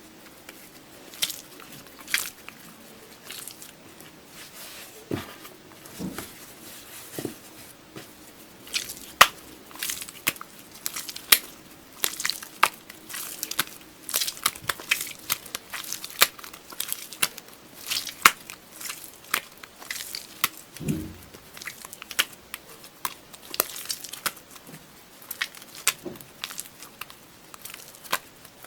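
Slime being squeezed and pressed by hand, giving a run of sharp clicks and crackles as air pockets pop, thickening about a third of the way in, with a few low squelches.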